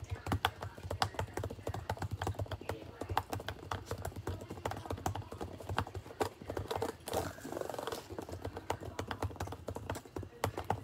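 Typing on a laptop keyboard: a quick, irregular stream of key clicks, over a low steady hum.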